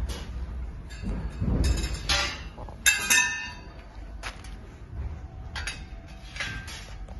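Gold-plated iron frame tubes being handled and slotted together: scattered metallic knocks and clinks, the loudest a sharp clink about three seconds in that rings briefly.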